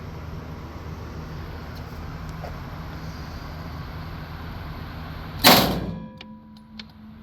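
A single gunshot fired at a shooting range about five and a half seconds in, sharp and by far the loudest sound, over a steady low background hum; a few faint clicks follow.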